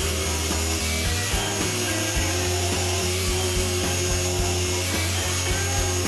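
Angle grinder fitted with an Arbortech Ball Gouge cutting grooves into wood, a continuous cutting noise. Background music with held low notes that change about two seconds in.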